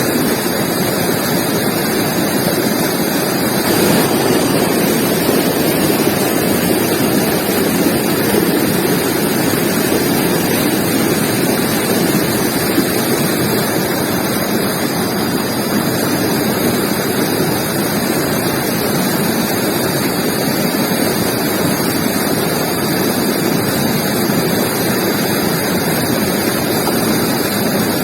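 Forest river flowing, a steady rushing of water.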